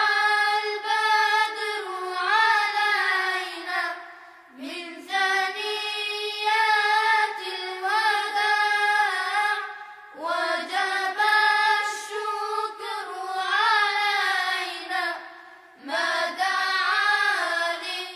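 A single high voice chanting or singing long, melismatic phrases with no instruments, in four phrases separated by short breaks.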